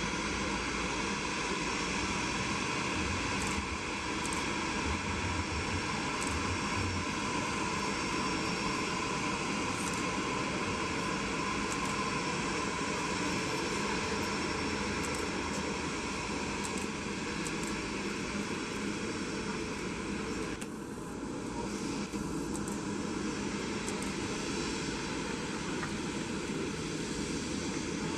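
Airbus A350 jet engines running with a steady whine of several held tones, dipping briefly about three-quarters of the way through.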